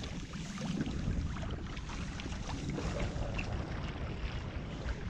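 Wind rumbling on the microphone and river water lapping against a small boat, with many small splashes and drips as a wet drift net is hauled in over the side by hand.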